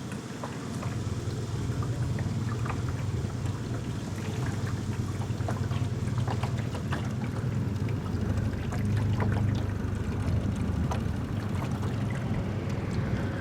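A small boat's outboard motor running steadily under way, a low hum, with water splashing and trickling against the hull and many small ticks and splashes.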